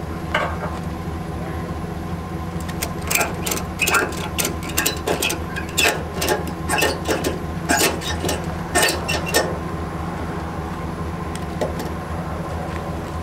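Engine idling steadily, with a quick irregular run of sharp clicks and clanks lasting several seconds in the middle.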